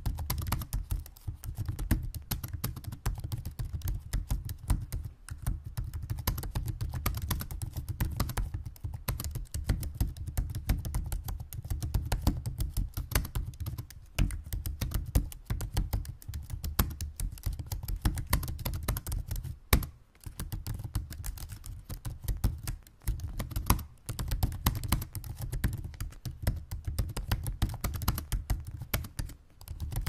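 Fast, continuous typing on a laptop keyboard: a dense run of key clicks, with short pauses about twenty seconds in and again a few seconds later.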